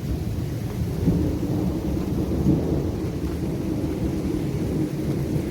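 A steady low roar from a severe thunderstorm overhead, swelling slightly about a second in and again midway. The uploader calls it a strange roaring wind sound, with little wind or rain reaching the ground.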